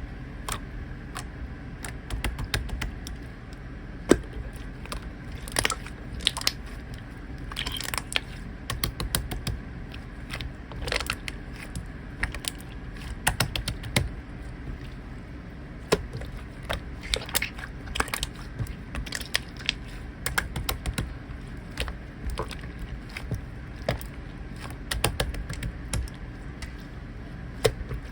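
Slime being squeezed and pressed by hand, giving irregular clicks and crackles throughout.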